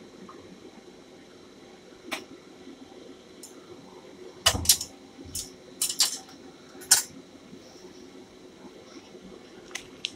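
Kitchen utensils and dishes clinking and clattering in a scatter of sharp, short knocks, loudest in a cluster around the middle, over a steady low kitchen hum.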